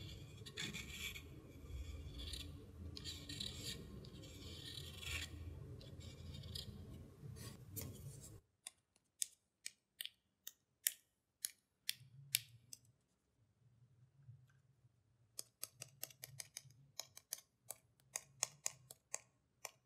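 A ruling pen scratches across paper in short strokes. About eight seconds in, the background drops away and a run of sharp ticks and taps follows, irregular and bunching up later, as an ink-loaded brush is tapped to spatter drops of ink onto the paper.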